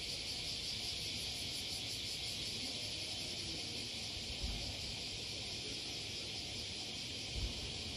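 Steady, high-pitched insect drone with no break, and two faint low thumps about four and a half and seven and a half seconds in.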